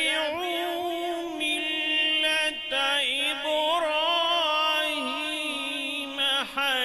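A man reciting the Quran in the melodic tajweed style, holding long notes that waver and glide, with short pauses for breath.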